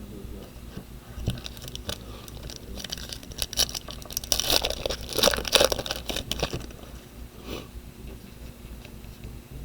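A foil trading-card pack being torn open and its wrapper crinkled: crackling, ripping noise that builds a few seconds in, is loudest in the middle, then dies away.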